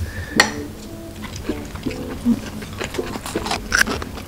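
Chopsticks clicking against a ceramic plate and dishes during a meal, a few sharp clinks, over soft background music.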